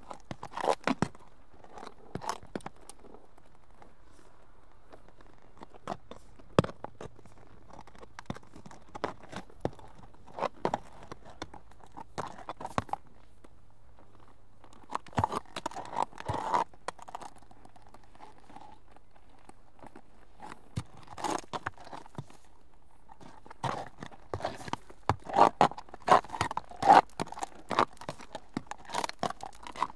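Horse hooves striking the ground in irregular clusters of steps with pauses between, the steps coming thickest and loudest in the last several seconds.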